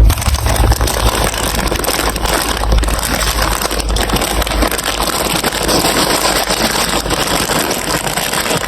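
Marbles rolling along a plastic building-block marble run: a steady, dense rattle of many small clicks.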